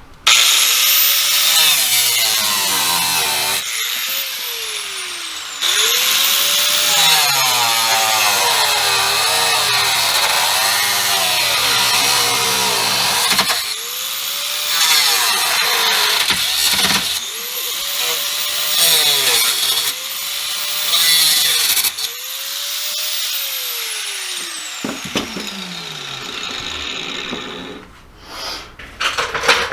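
Power drill drilling holes in the car's body metal, used in repeated trigger pulls. The motor whine spins up at each start, wavers and sags under load, and winds down between runs; the last run ends about 25 seconds in.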